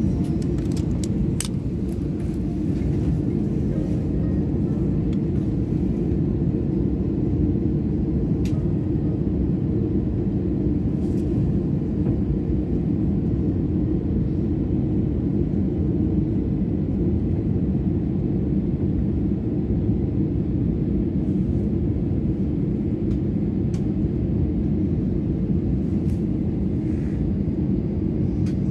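Steady low rumble of a jet airliner taxiing, heard from inside the passenger cabin, with a few light clicks.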